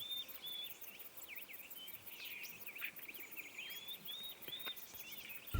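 Small songbirds singing and chirping: a run of short, arched whistled notes near the start and again about four seconds in, with scattered chirps in between.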